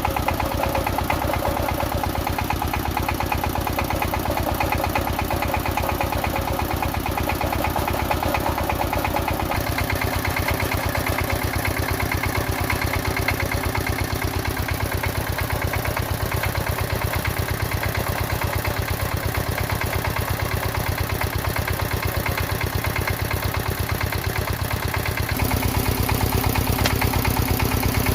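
Engine of a soil-testing boring rig running steadily with a fast, even beat. Its note shifts about nine seconds in, and near the end it changes again and grows a little louder.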